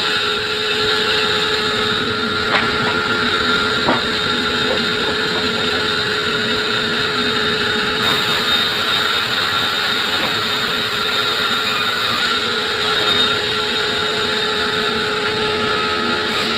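Sawmill saw running steadily through acacia wood, a continuous loud machine noise with a steady whine, with two brief clicks a few seconds in.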